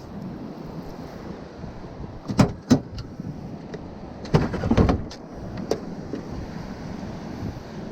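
Steady wind and surf noise on an open beach, with a few sharp knocks and clatters: two close together about two and a half seconds in, and a short cluster around four to five seconds in.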